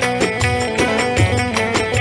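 Turkish folk dance music played on an amplified bağlama, with quick plucked melody notes over a steady low beat.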